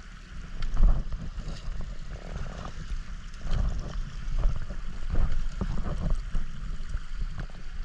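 Water splashing and sloshing unevenly as people wade across a shallow tundra creek.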